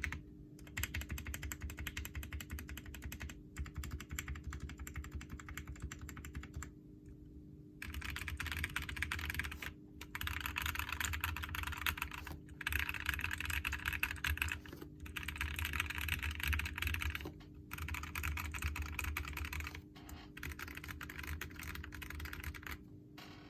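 Mechanical keyboard typing: a modded Royal Kludge RK98 with lubed and filmed Gazzew Boba U4T 62g tactile switches on a brass plate, giving fast muted key clacks in runs of a few seconds broken by short pauses.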